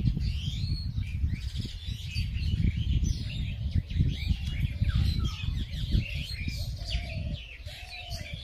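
Several small birds chirping and twittering, over a low, gusty rumble on the microphone that eases near the end.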